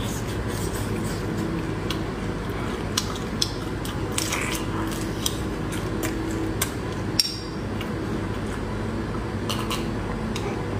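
Close-miked eating of spicy stir-fried prawns: shells cracking and crackling under the fingers and teeth, with wet chewing and scattered sharp clicks, over a steady low hum.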